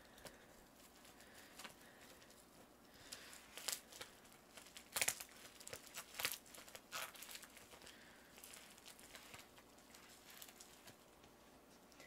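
Yellow plastic mailing bag being crinkled and torn open by hand: faint, scattered crackling, with a few sharper snaps and tears in the middle stretch.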